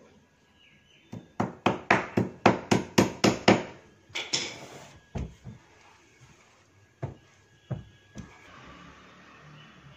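A quick run of about ten hammer strikes on the wooden frame of a sofa under repair, about four a second, followed by a short scraping rustle and a few separate knocks.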